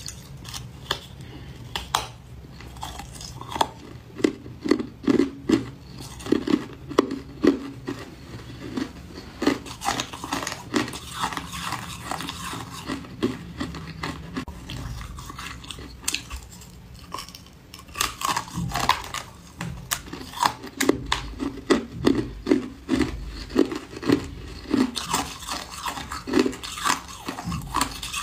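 Hard white ice being bitten and chewed close to the microphone: crisp crunches and cracks come in a steady chewing rhythm of about two or three a second. They ease off to softer grinding in the middle before picking up again.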